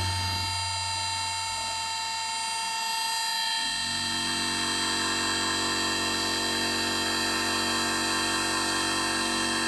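Homemade CNC turning-milling machine running, its motors giving a steady whine made of many tones. A lower hum comes in about four seconds in.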